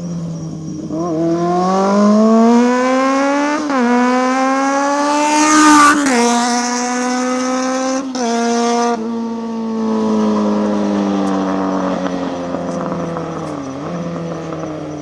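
Kawasaki ZRX400 inline-four sounding through a baffle-less Moriwaki conical silencer, accelerating hard and upshifting three times, with the pitch climbing and snapping down at each shift. The note then settles, falls slowly and fades.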